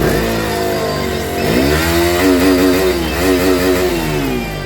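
KTM Duke 200's single-cylinder engine through its stock exhaust being revved. The revs fall away at first, climb again about a second and a half in, hold high with a wavering pitch, then drop back near the end.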